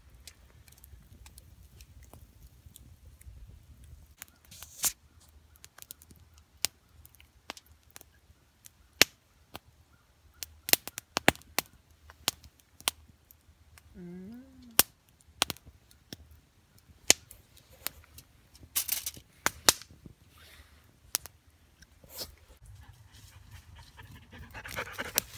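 Wood campfire crackling, with sharp, irregular snaps and pops. About halfway through there is a short whine from a dog that rises and falls.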